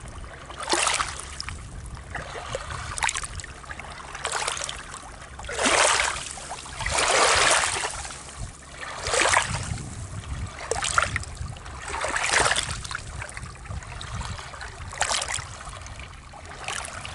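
Small waves lapping against rocks at a lake shore: short splashing washes that come every second or two, the longest about seven seconds in, over a low steady rumble.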